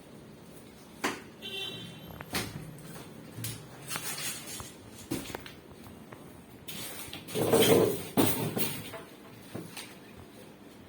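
Handling noises from unpacking a front-loading washing machine: scattered knocks and clicks, with a louder stretch of scraping and rustling about seven to eight and a half seconds in.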